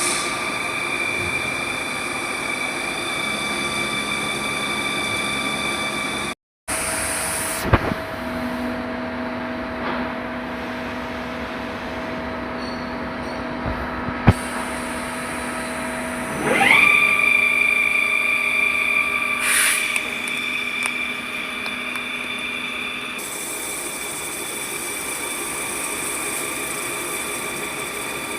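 CNC lathe running with a steady machine whine. About two thirds of the way through, a whine rises quickly in pitch and then holds steady. A few sharp clicks come before it.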